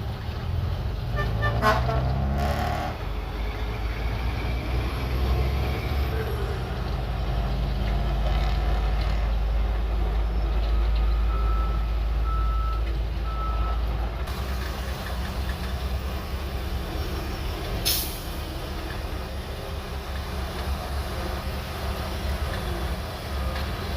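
Shantui DH17C3 bulldozer's diesel engine running steadily and heavily while working soil. Three short beeps come about halfway through, and a brief sharp squeal comes near the three-quarter mark.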